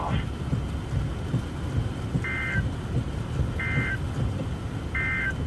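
Emergency Alert System digital data bursts: three short, identical two-tone SAME bursts about 1.4 seconds apart, the end-of-message code that closes the alert. Under them runs a steady low rumbling hiss.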